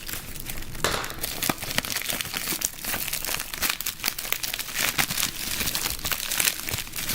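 Packaging crinkling and rustling as it is unwrapped by hand to get at coin capsules, with many small crackles throughout.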